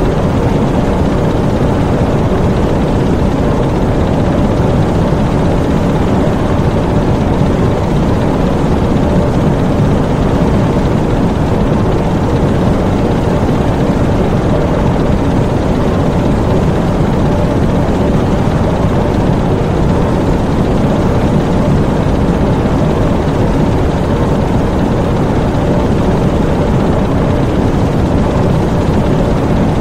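Diesel U-boat engine room with the submarine's diesel engines running steadily: a loud, constant drone with its weight in the low range and no change in pitch or level.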